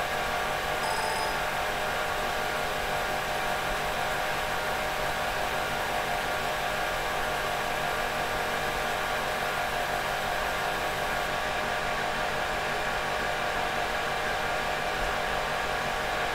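Steady whir and hum of the running PDP-11/03's cooling fan and power supply, with several steady tones.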